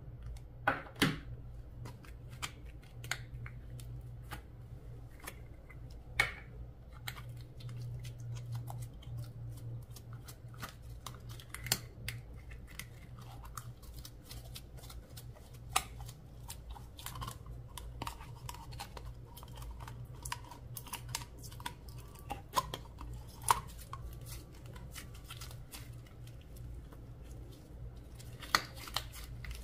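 Slime being squished and worked by hand, giving a steady run of small sticky clicks and crackles with a few louder snaps. A faint steady low hum runs underneath.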